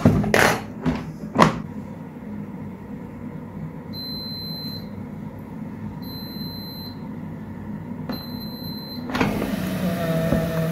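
Air fryer basket pushed back into the unit with a few knocks, then the air fryer's fan hums steadily while it gives three long beeps about two seconds apart. Near the end the hum gives way to a scrape as the basket is pulled out again.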